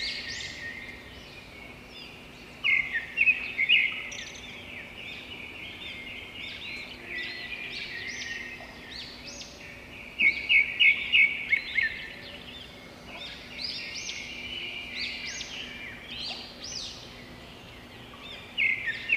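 Birdsong ambience: many birds chirping, with short, high, falling chirps throughout. Louder rapid runs of chirps come about three seconds in, around ten to twelve seconds in, and again at the end.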